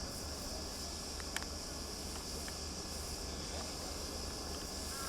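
Steady high-pitched drone of insects, with a low wind rumble and one sharp click about a second and a half in.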